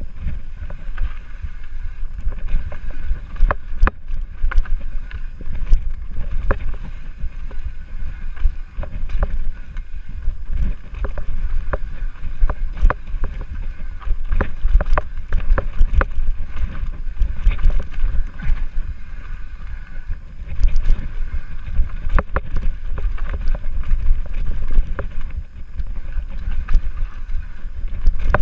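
Mountain bike descending a rough dirt forest singletrack: steady wind buffeting on the microphone, with the bike rattling and knocking over rocks and roots many times.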